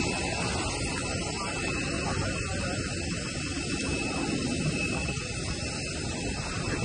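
Steady engine drone with rushing-air noise, even throughout and without separate events.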